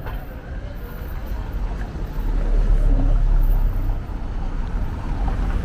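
A car driving slowly over a cobblestone street, engine and tyre noise swelling to its loudest about halfway through, over general city street noise.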